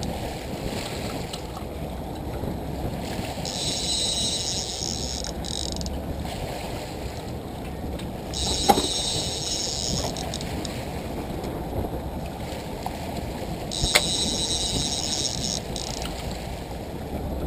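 Steady rumble and water noise of a trolling sport-fishing boat under way. A high hiss swells for a couple of seconds every four to five seconds, and there are two sharp clicks, one about halfway through and one later.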